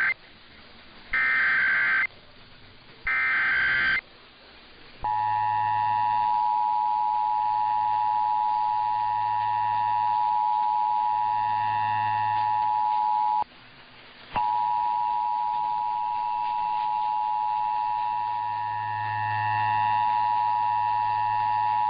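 Emergency Alert System broadcast: the SAME digital header's short warbling data bursts, three in all, a second apart, then the EAS two-tone attention signal sounding steadily, with a brief dropout and a click about two-thirds of the way through. Together they mark the start of an alert, here a Required Monthly Test.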